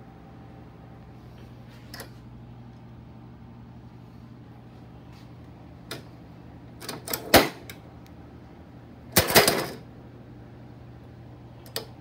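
Lock tabs and pins on a work stand's adjustable steel leg clicking and clacking as they are worked by hand. There are single clicks now and then, a quick cluster of loud clacks about seven seconds in, and a longer metallic clatter about nine seconds in.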